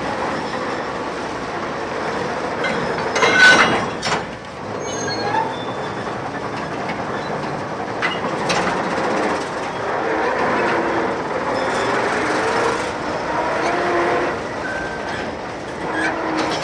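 Empty railway goods wagons being shunted: a steady rolling rumble with short, wavering metallic wheel squeals, and sharp clanks of wagons knocking together about three and a half and four seconds in, the loudest moment, with lighter clanks later.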